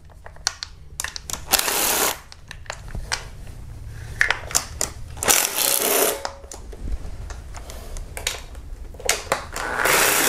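Ratchet and socket clicking as valve-cover bolts are backed out of the engine, in three short spells of rapid ratcheting with scattered small metal clicks between them.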